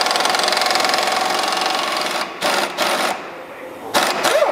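Pneumatic impact wrench hammering on the 18 mm pinch bolt at the bottom of a front strut, a rapid rattling that runs for about two seconds, then two shorter bursts.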